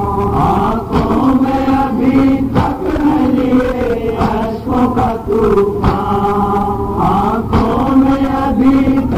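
Nauha, a Shia lament, chanted by male voices in unison, with dull thumps of chest-beating matam every second or so.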